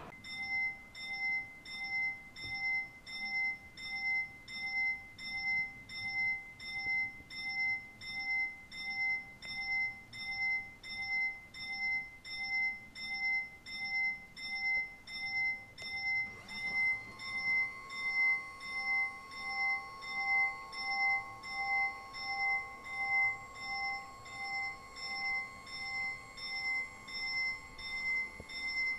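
Italian level-crossing warning bell ringing in an even rhythm of clear strikes. About halfway through, a steady hum joins it as the crossing barrier arm begins to lower.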